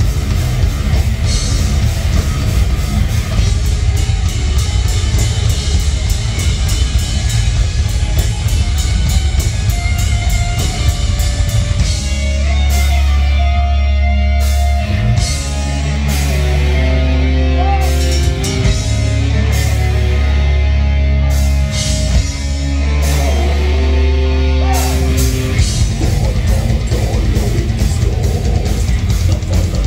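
Live heavy metal band playing distorted electric guitars, bass and a drum kit, with fast, dense drumming. About twelve seconds in it shifts to long held low chords with sparse drum hits. The fast section returns near the end.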